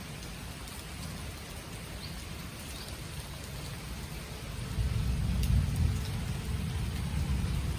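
Rain falling in a steady patter, with scattered faint drop ticks over a low rumble that grows louder about five seconds in.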